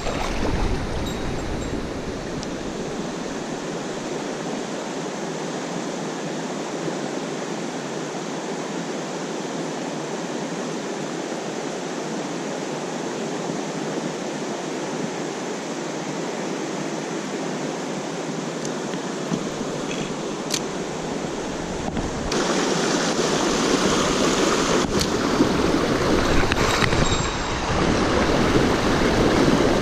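Mountain stream water running over rocks, a steady rushing noise that suddenly gets louder about three-quarters of the way through.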